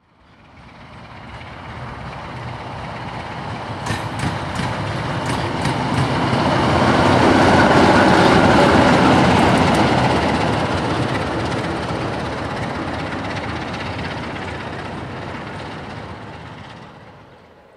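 GFR 43-0146-1 locomotive hauling a freight train passing close by. The sound builds from nothing, is loudest about eight seconds in as the locomotive goes past, then fades away, with a run of sharp clicks from the wheels on the rails a few seconds before the peak.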